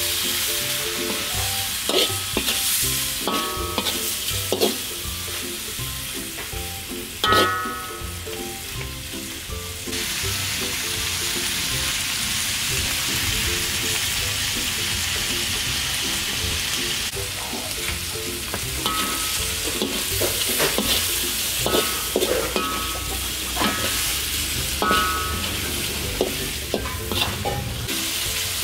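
Squid sizzling as it is stir-fried in a metal wok in a thickened fish-sauce glaze over medium-high heat. A perforated metal skimmer scrapes and clinks against the wok as the squid is tossed. In the middle there is a stretch of steady sizzling with no stirring.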